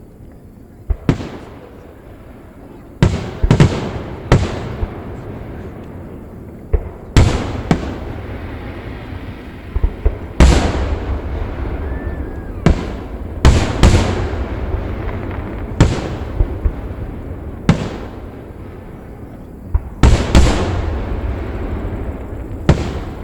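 Aerial fireworks going off: a string of sharp bangs, some in quick pairs and triplets, each followed by a rumbling echo, with a low rumble that keeps going between them.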